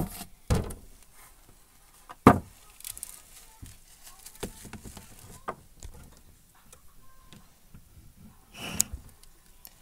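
Handling noise from toy dolls being moved around a plastic dollhouse: three sharp knocks in the first two and a half seconds, then scattered light clicks and a brief rustle near the end.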